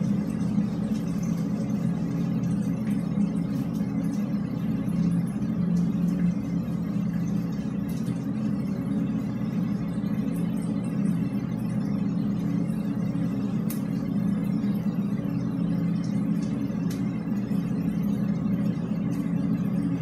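Steady low rumbling hum of background noise inside a drainpipe, with a few faint scattered ticks; no air-horn blast stands out.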